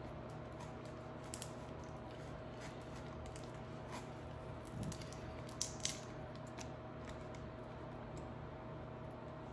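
A person eating quietly: faint chewing and a few small clicks from handling food, over a steady electrical hum.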